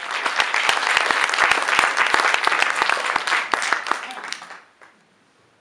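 Audience applauding with many hands clapping at once, dying away about four and a half seconds in.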